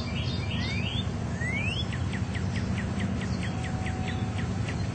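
A songbird singing: two rising whistled notes, then a quick run of about a dozen short falling notes, roughly four a second, over a steady low background rumble.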